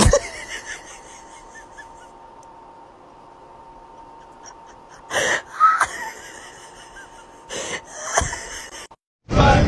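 Quiet room tone with a faint steady hum, broken by a few short breathy vocal sounds, like a person's gasps, about five seconds in and again about two seconds later.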